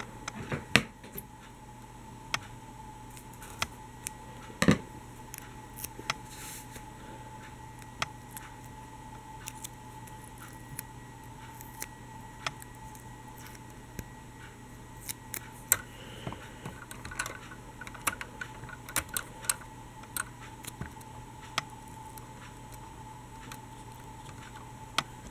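Scattered small clicks, taps and rustles of fingers handling paper strips and clear tape against the plastic doors of a toy tram, over a faint steady hum.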